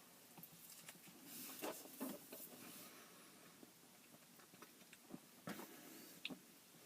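Near silence: quiet room tone with a few faint soft clicks and rustles.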